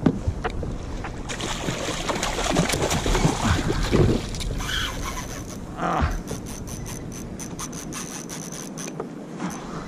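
Fishing reel being wound in during a fight with a bonito, with rubbing and scraping of the gear at first, then a run of rapid, evenly spaced clicks, about five a second, in the second half.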